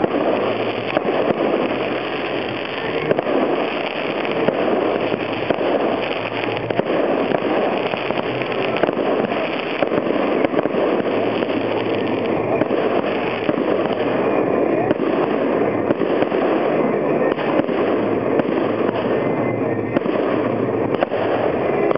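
Aerial fireworks display going off: an unbroken, dense stream of launches and bursts, many sharp pops and bangs overlapping every second.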